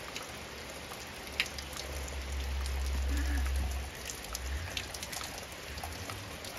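Steady rain falling, with close drops ticking on a wet tarp and one sharper tick about a second and a half in. A low rumble rises under the rain for about two seconds in the middle.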